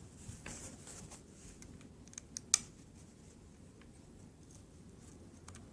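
Light clicks and faint rustling of small drone parts being handled during disassembly, with a quick run of sharp clicks a little over two seconds in, the last one the loudest.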